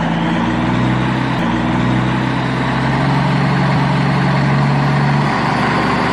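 A truck engine idling, a loud, steady low drone.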